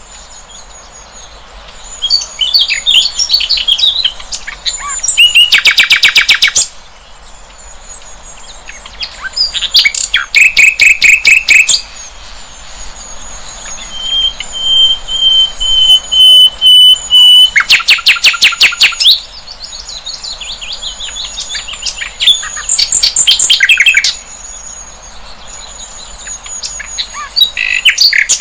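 Sikatan londo flycatcher singing: bursts of fast, rattling trills of rapidly repeated notes every few seconds, with high twittering between them and one long, thin, steady whistle about midway.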